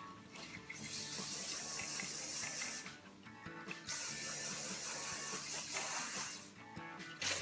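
Aerosol hairspray can spraying in two long hisses of about two and a half seconds each, with a third starting near the end.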